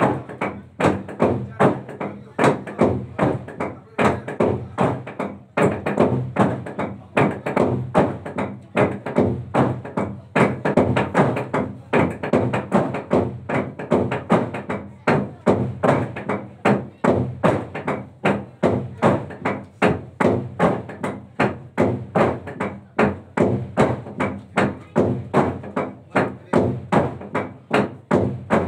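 A long hollowed-out wooden log drum struck by a team of players with wooden beaters: hollow wooden knocks in a fast, steady rhythm, about two to three strong strokes a second.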